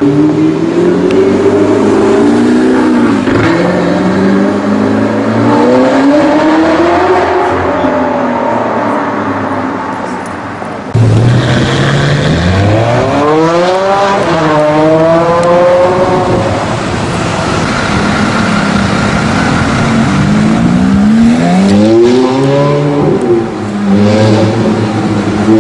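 High-performance car engines revving and accelerating, their pitch climbing and dropping again and again. The sound changes abruptly about eleven seconds in, and is followed by several quick rising sweeps like upshifts under hard acceleration.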